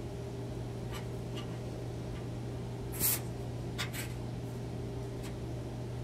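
Steel square tubing being handled on a steel welding table: a few brief scrapes and taps, the clearest about three seconds in, over a steady low hum.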